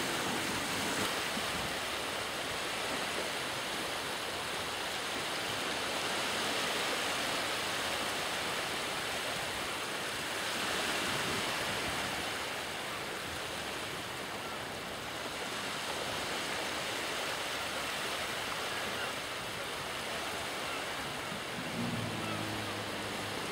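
Steady rushing noise of wind and sea water. Near the end a jet ski's engine comes in as a low hum.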